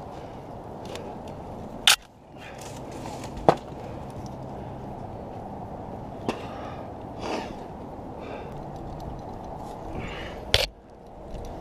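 A climber moving through conifer branches: brief rustling of needles and twigs with about four sharp cracks, the loudest about two seconds in and near the end, over a steady low background noise.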